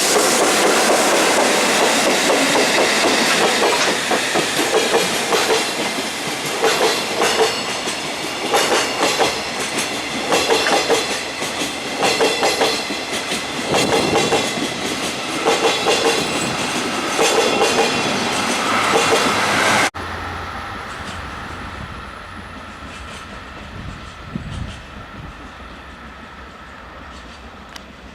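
Freight wagons of a JR Freight train (Koki container flatcars and Chiki 5500 rail-carrying wagons) rolling past close by at low speed. Their wheel sets clatter over rail joints in groups of beats about every two seconds. About 20 seconds in the sound cuts off abruptly to a much quieter, distant low rumble.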